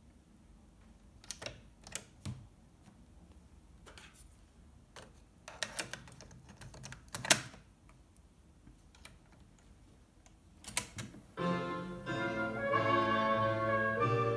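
Mechanical clicks and clacks of the Dual C 819 cassette deck's eject mechanism and cassette door as a cassette is handled and the door snapped shut, the sharpest click a little past seven seconds in. A transport key clicks down near eleven seconds, and music starts playing from the tape right after.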